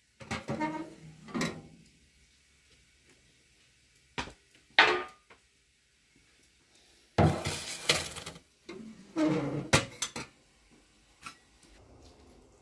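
Metal clanks and clattering from the oven door of a sheet-metal wood-burning stove being opened and handled: a few separate knocks, with the longest and loudest clatter about seven seconds in.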